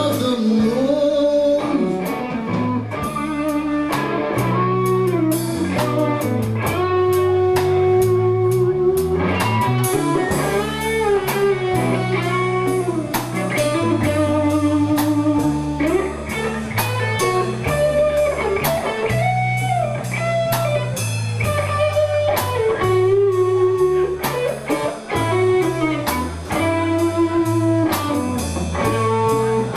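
Background music: an instrumental blues-rock break with a lead guitar playing bending melodic lines over bass and a steady drum beat.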